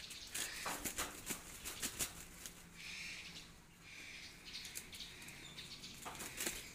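A pen of ornamental ducks, Bahama pintails and Carolina wood ducks, flapping their wings and shuffling about, with sharp flaps and patters throughout and short calls now and then.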